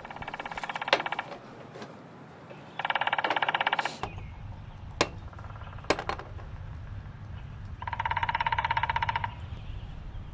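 Woodpecker drumming: three rapid rolls of knocks, each lasting about a second to a second and a half, with a few single sharp clicks in between.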